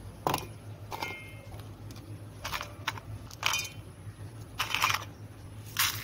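Spices, ginger, garlic and onion pieces being dropped and tipped by hand into an empty stainless-steel mixer-grinder jar. About seven separate clattering knocks, a couple of them with a short metallic ring. A low steady hum sits underneath.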